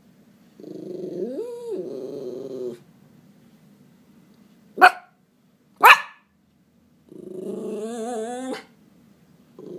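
Miniature schnauzer growling, agitated at the sight of a cat: a growl that rises and falls in pitch, two sharp barks about five and six seconds in, then another growl with a wavering pitch.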